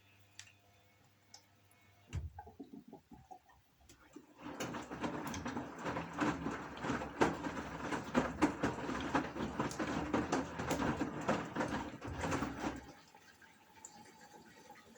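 Gorenje washing machine taking in water: a gush of water splashing with many small clicks starts about four seconds in, runs for about eight seconds and stops, leaving a faint drip.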